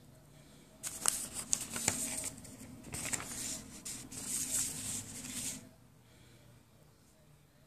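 Sheets of lined notebook paper rustling and crinkling with a few sharp crackles as the pages are handled and shuffled, lasting about five seconds.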